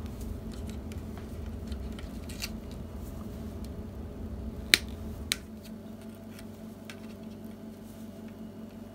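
Small wire cutters snipping through insulated wires: a few light clicks, then one sharp snip about halfway through and another just after.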